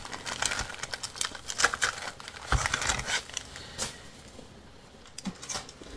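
Rustling and small crackling clicks of stamp sheets and their plastic packets being handled and sorted through, dying down for about a second near the end before the handling picks up again.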